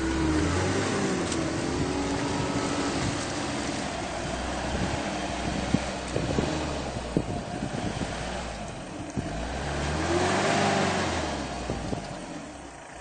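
Mitsubishi Pajero 2 engine revving up and down as the SUV churns through deep mud, wheels spinning. The engine rises in pitch twice, near the start and about ten seconds in, with a rush of spinning tyres and mud at the second rev and scattered knocks in between.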